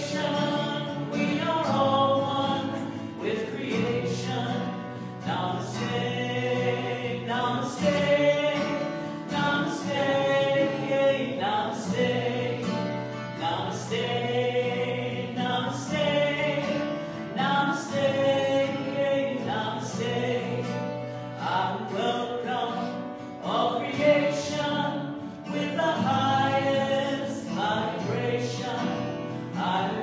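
Live devotional song: a woman and a man singing together to a strummed acoustic guitar.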